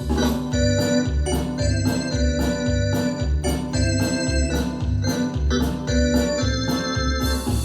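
Yamaha DX7 FM synthesizer playing an organ-like patch: sustained chords over a pulsing bass line with a steady beat.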